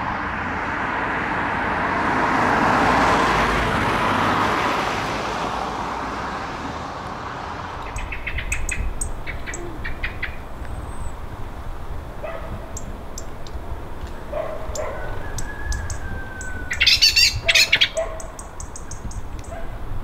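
A high-flying jet airliner's distant roar swells and then fades over the first several seconds. After that, small birds chirp and tick, with a loud flurry of high calls near the end.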